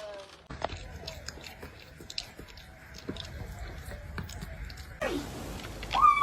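Soft chewing sounds made of many small clicks and crunches, then a cat meows once near the end, the call falling in pitch.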